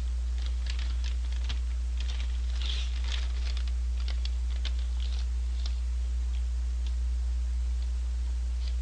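Crinkles and clicks from handling a McDonald's Shake Shake paper fries bag, thinning out after about six seconds, over a steady low electrical hum.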